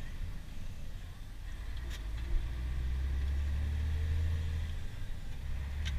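Scania truck's diesel engine running steadily, heard inside the cab as a deep, even drone, with a short click about two seconds in.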